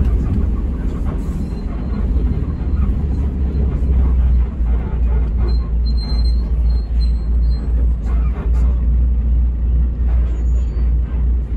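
Hino RG230K coach on the move: a steady, deep engine and road rumble.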